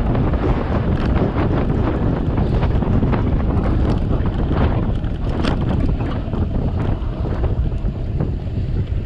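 Wind buffeting the microphone of a camera riding on a moving bicycle, a steady loud rumble, with scattered small clicks and rattles throughout.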